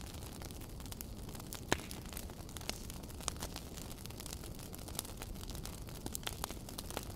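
Wood fire crackling: a steady low hiss with irregular sharp pops and snaps, the loudest crack about two seconds in.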